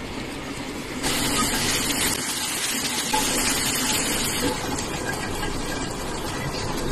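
Water from a bathroom faucet running into a white basin, starting about a second in as the cat pushes the tap lever, then running steadily.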